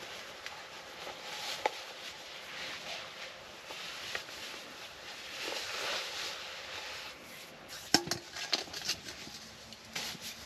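Rustling and handling noises, with a cluster of sharp knocks and clicks about eight seconds in.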